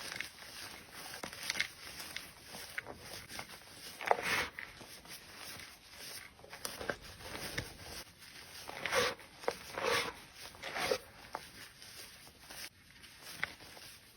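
Slime being squeezed and worked by hand: soft squishes with small crackling clicks, and a few louder squelches about four seconds in and again around nine to eleven seconds in.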